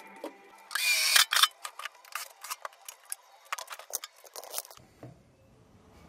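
Workshop handling noises: a short rush of noise about a second in, then a run of sharp, irregular clicks and clatters that stops near the end.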